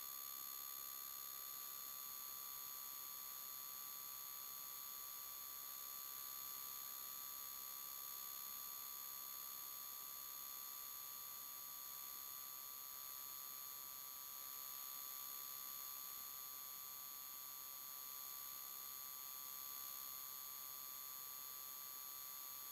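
Faint, steady electronic whine: several fixed high-pitched tones over a light hiss. No engine, road or wind sound comes through. It is typical of electrical interference in a vehicle-mounted camera's audio rather than any sound of the ride.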